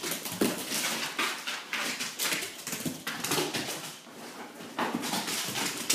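A puppy running across a hardwood floor, its claws clicking, scrabbling and skidding, with a brief lull about four seconds in.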